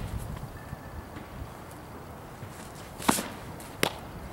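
A softball popping into a leather glove twice, two sharp smacks about three-quarters of a second apart, a little after halfway through.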